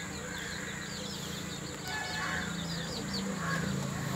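Chickens clucking, with high chirps repeating several times a second and a low steady hum underneath.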